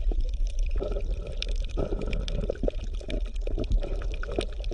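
Underwater water sound: bubbling and gurgling with many small irregular pops and clicks over a steady low rumble.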